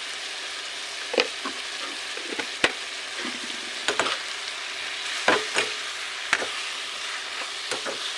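Food sizzling steadily in a hot pan while being stirred. A dozen or so sharp, irregular knocks and scrapes of the stirring utensil against the pan sound over the sizzle.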